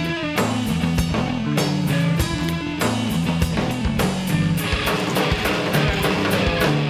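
Rock music with a drum kit, bass and guitar playing a steady beat.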